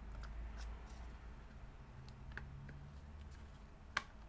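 Faint scattered clicks and ticks of small laptop parts and connectors being handled, with one sharper click about four seconds in, over a low steady hum.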